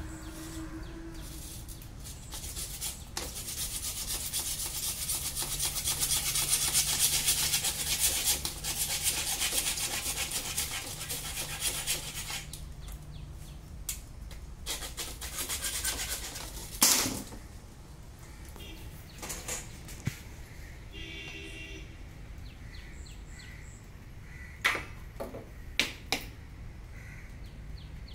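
A hand-held hacksaw blade sawing through a 1-inch white plastic water pipe: a steady scraping of quick strokes, loudest for about ten seconds before it dies away, then a single sharp crack about 17 seconds in, followed near the end by a couple of light clicks.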